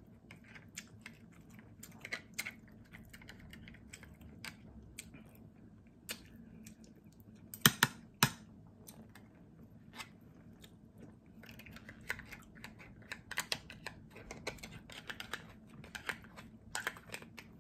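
A fork clicking and scraping against cooked crab shell and a plastic plate as crab meat is picked out, with some chewing. The small clicks come irregularly, with two louder clacks about eight seconds in.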